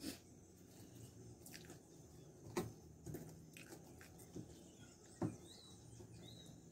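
Quiet eating sounds: a metal fork clicking and scraping against a foil tray of loaded fries, with soft chewing and a few sharp clicks spaced through.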